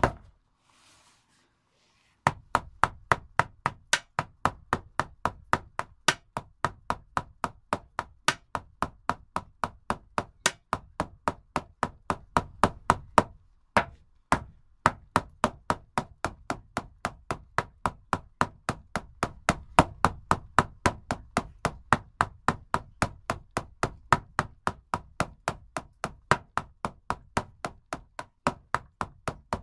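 Shaman frame drum beaten with a stick in a steady, fast rhythm of about three beats a second, each beat with a deep booming ring. The drumming stops for about two seconds at the start and breaks off briefly about halfway through.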